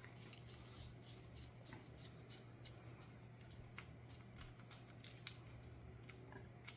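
Faint, scattered small clicks and ticks of a Phillips screwdriver working the screw of a fishing-reel handle knob, over a low steady hum.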